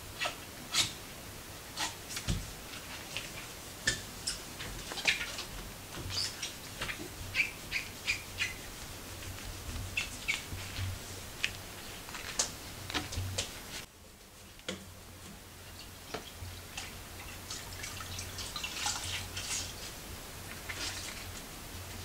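Damp cloth being wiped over gloss-painted wooden banister spindles by rubber-gloved hands, making many short squeaks and light taps against the wood.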